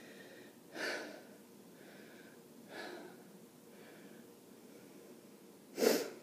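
A woman breathing out sharply close to the microphone: three short puffs about two seconds apart, the last the loudest.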